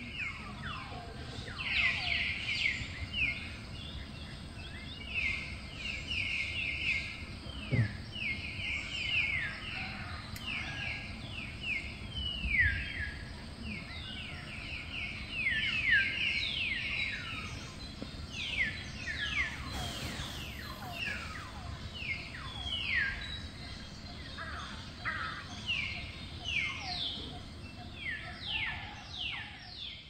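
A dense chorus of small animals calling: many short chirps, each falling in pitch, overlapping with no break over a low background rumble.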